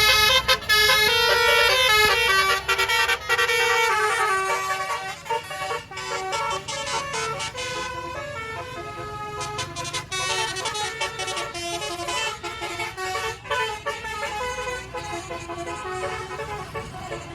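Indonesian bus "telolet" basuri horn playing a melody of quickly changing notes, loudest for the first four seconds, then quieter.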